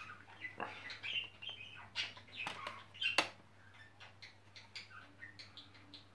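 Plastic Blu-ray cases and a loose disc being handled: a run of small clicks, taps and plastic creaks, with the sharpest click about three seconds in.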